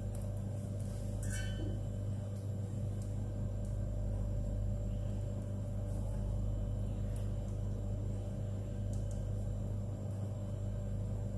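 Steady low electrical hum, with a faint click about a second in.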